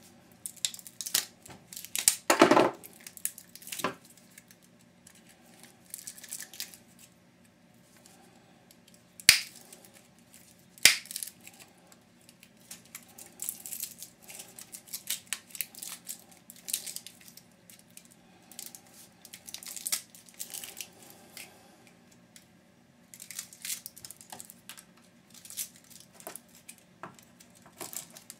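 Copper wire being cut and pulled out of a hedge trimmer part by hand: irregular snips, crackles and scraping, with two sharp, loud snaps about nine and eleven seconds in.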